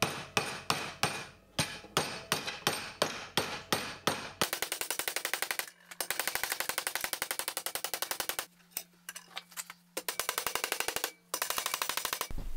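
Mallet blows on annealed copper sheet, flanging the edge of a firebox tube plate over a wooden former held in a vice. The blows come about three a second for the first four seconds, then turn into a much faster, even run of taps with a few short breaks.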